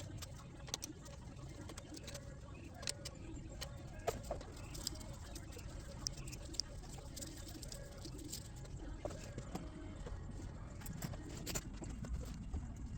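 Scattered light clicks and taps at an irregular pace, as of small metal parts being handled and fitted, over a steady low rumble.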